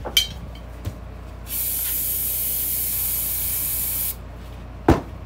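Aerosol cleaner sprayed from a can in one steady hiss of about two and a half seconds that cuts off sharply, degreasing a metal axle spacer. A short click comes just after the start, and a sharp knock comes near the end, louder than the spray.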